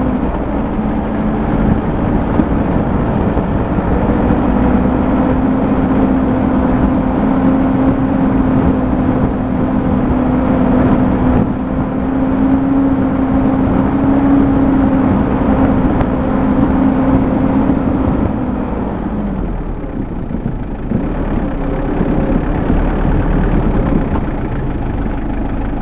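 Off-road vehicle's engine running under steady load, heard from on board, over a constant rumble of rough ground; about three quarters through, the engine pitch drops and it eases off.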